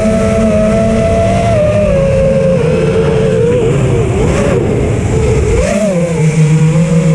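Multirotor's Emax brushless motors and propellers whining steadily. The pitch dips and wavers between about three and six seconds in as the throttle changes during acro manoeuvres, then settles again.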